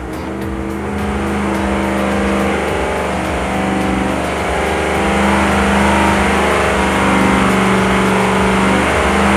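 Supercharged 6.2-litre LT5 V8 running under load on an engine dyno, holding a steady pitch and growing louder.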